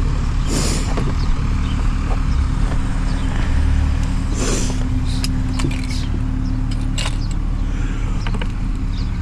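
Scattered plastic clicks and rustling as hands work at a stuck door wiring connector inside a car door, over a steady low hum.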